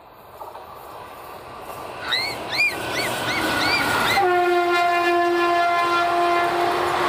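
WAP-4E electric locomotive's air horn sounding one steady blast of about two and a half seconds, over the rising rush and clatter of an express train coming past at speed. Just before the horn there is a quick run of short high chirps.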